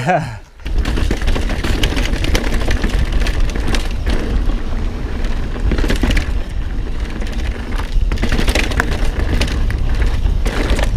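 Mountain bike riding fast over a rough trail: a continuous clatter of tyres and rattling parts over a low rumble, starting about half a second in.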